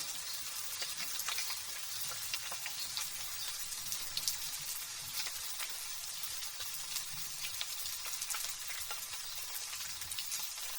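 Light drizzle pattering: a steady hiss with many small, fine drop ticks.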